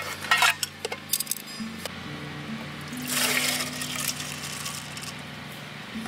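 Light metallic clinks of an aluminium hangō mess tin and its inner tray being handled, then, about three seconds in, a rush of rice and water poured from a bottle into the tin for about a second.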